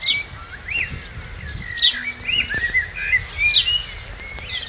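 Bird song: a run of short whistled notes and glides, with a sharp falling chirp three times.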